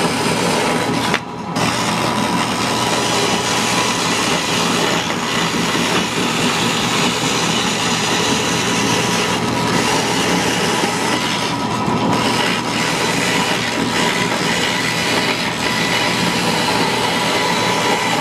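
Bandsaw running and cutting through a small block of wood fed by hand: a loud, steady rasp of the blade in the wood over the hum of the saw, dipping briefly about a second in.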